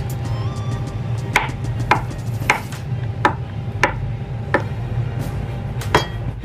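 Kitchen knife chopping food on a wooden cutting board: seven separate chops at a slow, even pace, a little over half a second apart, with a longer pause before the last one.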